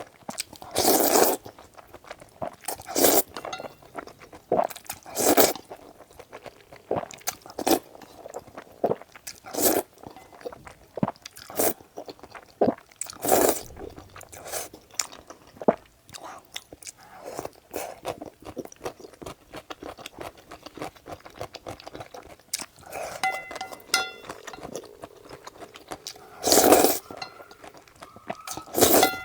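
Close-miked eating of thick, sticky wide noodles: loud slurps every couple of seconds, with wet chewing in between.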